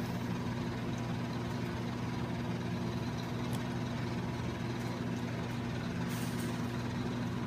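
Steady low machine hum, with a couple of faint light clicks about three and a half and six seconds in.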